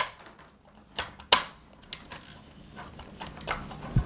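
Irregular sharp clicks and clacks of a threezero DLX Jetfire action figure's parts being handled and pushed together at the leg joint, about six in all, the loudest about a second and a half in.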